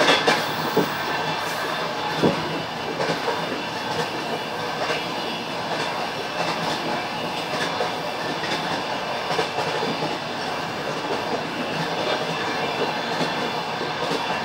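Passenger train wheels clattering over rail joints, a clickety-clack of knocks over a steady rolling rumble. A few sharper, louder clacks come in the first couple of seconds, then the rumble runs on with fainter knocks.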